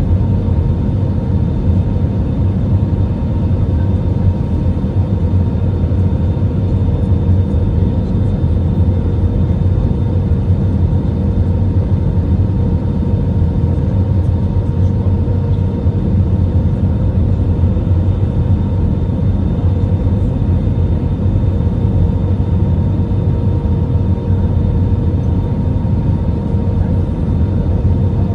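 Steady cabin noise inside an Airbus A319 in flight: a low, even rumble of jet engines and airflow with a thin steady whine over it.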